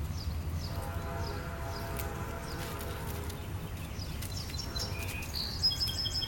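Outdoor background noise: a low, steady rumble with a faint pitched hum partway through, and short high chirps that grow more frequent near the end, like small birds.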